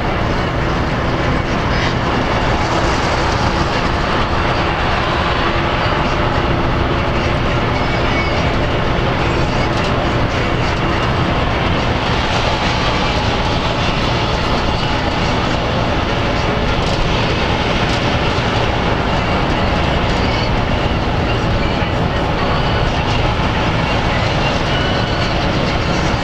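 Inside a LiAZ-5256.13 bus driving at highway speed: a steady drone of engine, tyre and road noise that holds evenly throughout.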